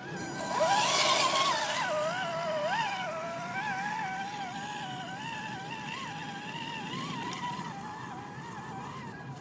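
Axial SCX10 Deadbolt RC crawler's electric motor and drivetrain whining, the pitch wavering up and down with the throttle, with a loud rushing noise about half a second to two seconds in.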